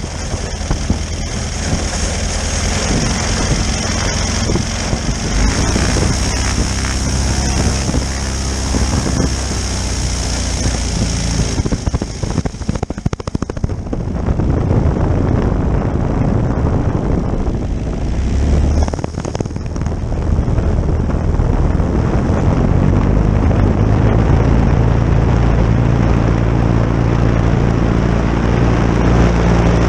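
Legal Eagle ultralight's flat-twin engine and propeller running steadily while it moves on skis over snow, with wind on the microphone. A high hiss drops away before the halfway point, and past the middle the engine gets louder and steadier.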